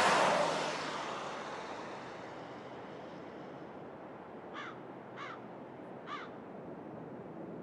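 A rushing noise swells and fades over the first couple of seconds, leaving a steady, wind-like background. A little past halfway, a crow caws three times, about half a second to a second apart.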